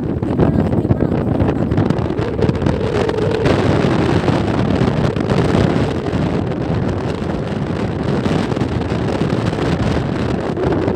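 Loud, steady wind buffeting the microphone, a dense rumbling noise.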